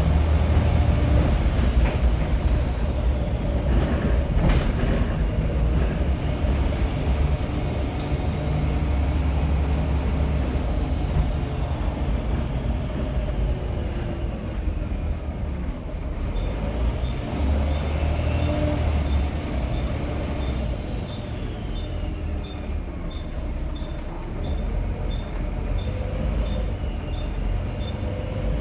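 Volvo B7TL bus's turbocharged diesel engine pulling hard, with a high turbo whistle that rises and falls as the driver accelerates and eases off. There is a sharp knock about four seconds in, and a steady ticking, about two a second, through the second half.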